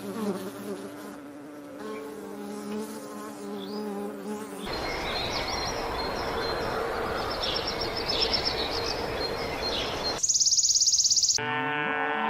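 Insects buzzing with a steady hum, then a noisier stretch with high chirps, a brief fast high trill about ten seconds in, and a cow starting to moo near the end.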